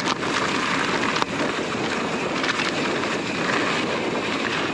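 Strong wind buffeting the microphone as a steady rushing rumble, with a single sharp click about a second in.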